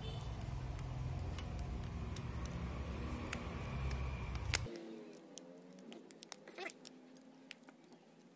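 Low rumble of handling noise on the microphone that cuts off suddenly about four and a half seconds in, with small clicks and rustles from fingers working a rubber band and thin wire against an 18650 lithium-ion cell.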